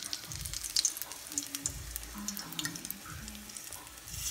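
A battered roll frying in shallow oil in a stainless steel pan: steady sizzling with many small crackling pops.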